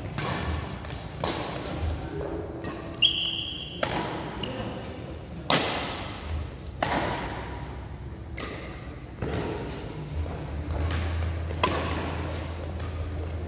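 Badminton rally: sharp racket strikes on the shuttlecock roughly once a second, mixed with players' footfalls on the court. A short high squeal, typical of a shoe squeaking on the court surface, comes about three seconds in.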